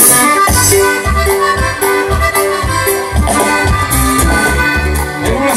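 Live dance-band music with a steady bass beat under a melodic lead.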